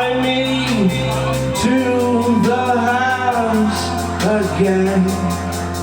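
Live band playing a song's opening bars: sustained keyboard chords under a melody line that swoops and slides between notes.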